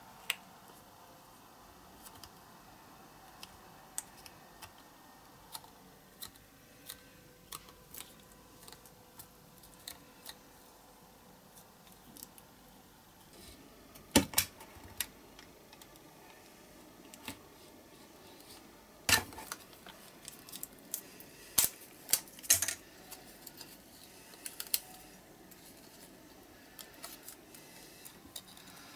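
Scattered small clicks and taps from hands handling a folded sheet and small tools over a cutting mat. A few sharper clicks come about halfway through and again about two-thirds of the way through.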